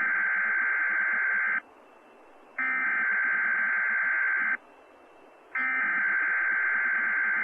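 Three bursts of the SAME digital alert header from a weather radio broadcast. Each is about two seconds of steady, shrill two-tone data tones, with a second of faint radio hiss between them. This is the coded header, sent three times, that marks the start of a new weather alert message.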